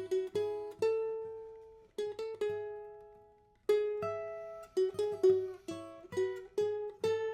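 Plucked string instrument playing a single-note melody in an instrumental passage of the song. Quick notes alternate with notes that are let ring and die away for a second or more. A faster run of notes comes in the second half.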